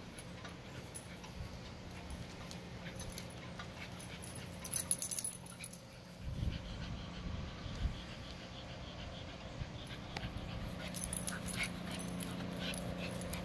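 A fluffy white puppy and a small terrier play-fighting, with short dog vocal sounds scattered throughout. There is a louder flurry about five seconds in and more near the end.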